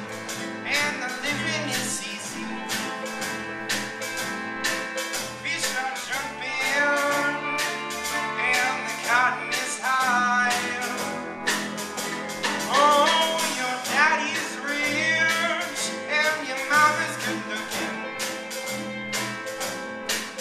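Live band playing a song: a young lead singer over electric and acoustic guitars, upright bass and a drum kit keeping a steady beat.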